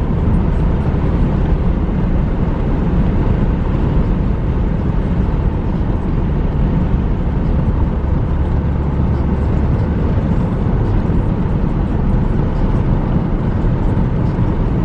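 Steady road and engine noise heard inside the cabin of a moving car, loud and even, strongest in the low end.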